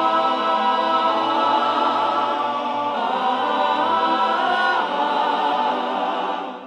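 Gospel choir holding long sustained notes, the final chord of the song. The notes shift twice, then fade out near the end.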